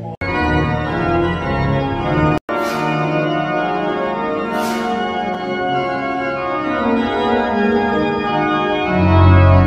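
Organ playing slow, sustained chords. The sound drops out twice for a split second, just after the start and about two and a half seconds in.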